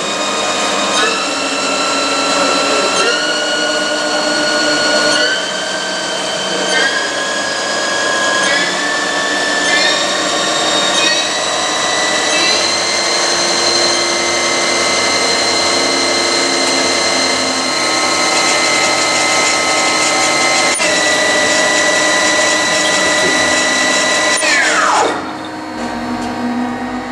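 HAAS TL1 CNC lathe spindle running with a whine that climbs in a series of steps as the speed is raised to 1800 rpm, then holds steady. About 25 s in, the whine falls away quickly as the spindle winds down to a stop.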